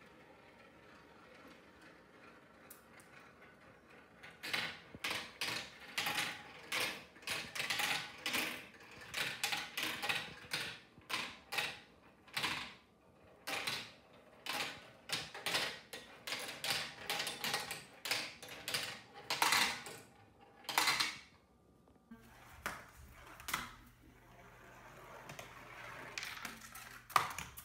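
Marbles clattering down a tall plastic marble-run kit tower: a long run of sharp clicks and rattles, several a second, which stops about 21 seconds in. After that comes a softer rolling noise, then one sharp click near the end.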